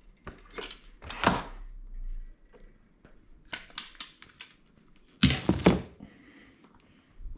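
Handheld caulking gun clicking as its trigger is squeezed and the plunger released while sealant is run around a plastic cat flap tunnel liner, a few sharp clicks then a quick cluster of them. About five seconds in the metal gun is set down with a few loud knocks on a wooden floor.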